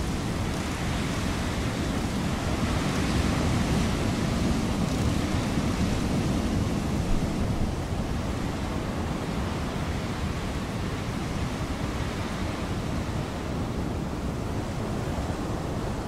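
Wind blowing, a steady rushing noise that swells in the first half and settles again.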